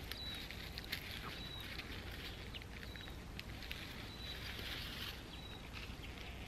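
Plants rustling with small sharp snaps as puha is picked by hand, while a small bird gives five short, high, evenly spaced chirps.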